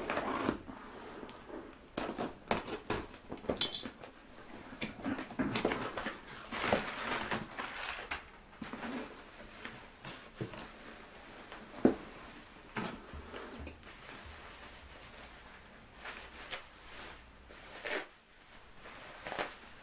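Cardboard parcel being unpacked by hand: packing tape slit and pulled, box flaps opened, crumpled brown packing paper and bubble wrap rustling and crinkling in irregular bursts. A single sharp knock about twelve seconds in is the loudest sound.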